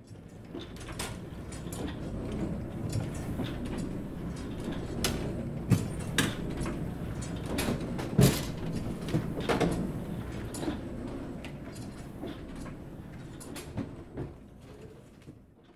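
Print-shop machinery: collotype presses running, a steady low rumble with irregular clacks and knocks of metal parts, fading in at the start and out at the end.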